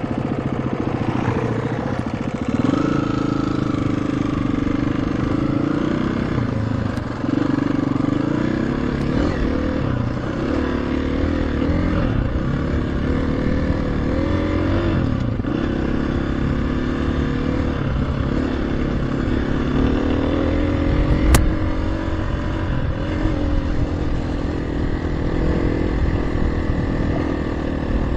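KTM 350 EXC-F single-cylinder four-stroke dirt bike being ridden, its engine note rising and falling with the throttle. One sharp knock about three-quarters of the way through.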